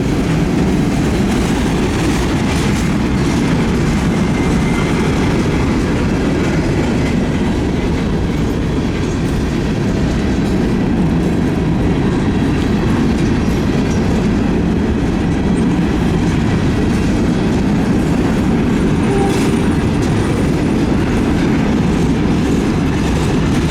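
Freight train of open rock hopper cars rolling slowly past at about 10 mph, a steady, loud rumble of steel wheels on the rails.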